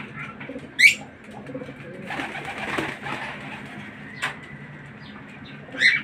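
Caged lovebirds calling: two sharp, shrill chirps about five seconds apart, with a shorter one between them and a burst of rustling in the middle.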